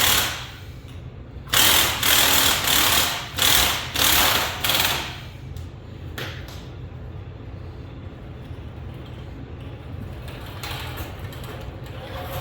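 A power tool running in several short bursts, each about half a second to a second long, over a steady low hum; after about five seconds only quieter clanks and shop noises remain.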